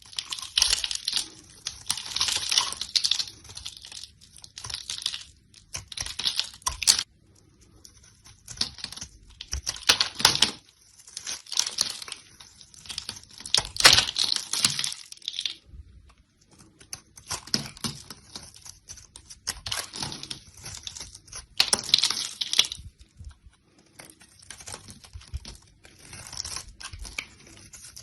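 Knife cutting through dry soap: a run of crunchy, crackling strokes, each lasting a second or two, with short pauses between them.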